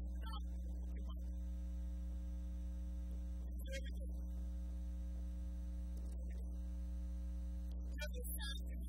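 Steady low electrical mains hum, with a few faint brief sounds around the middle and near the end.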